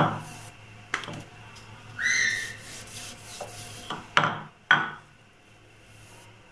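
Wooden rolling pin rolling parotta dough on a stone countertop, a soft rubbing broken by several sharp knocks of wood on stone. A brief high squeak sounds about two seconds in.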